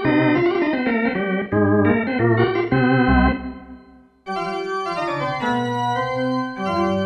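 Technics WSA1R synthesizer playing its 'Full Drawbars' drawbar-organ preset in chords with a wavering vibrato, fading out a little after three seconds. About a second later its 'Pipe Organ 1' preset comes in with sustained, brighter chords.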